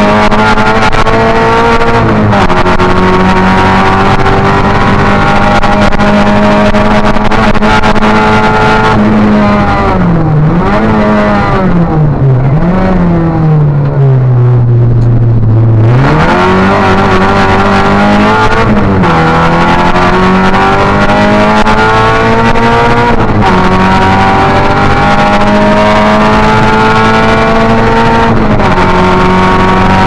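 Opel Astra rally car's engine heard from inside the cockpit, pulling hard through the gears with the pitch climbing in each gear and dropping at each upshift. Midway it slows: the revs fall, with two quick throttle blips on downshifts, to a low point, then it accelerates hard again through several more upshifts.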